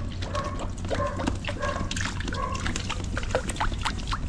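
An animal, likely a dog, calling in a run of short, evenly spaced yaps about every two-thirds of a second. The yaps stop about two and a half seconds in and give way to a patter of small sharp crackles and ticks.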